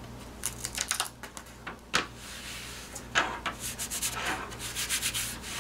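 Stick-and-tear embroidery stabilizer being stretched, smoothed and pressed onto the back of a plastic embroidery frame until taut: paper rustling and rubbing with scattered light clicks.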